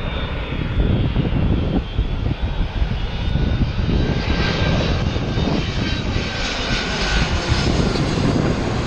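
Jet airliner on final approach passing low overhead: a steady, heavy engine rumble with a thin fan whine, the high hiss growing stronger from about four seconds in.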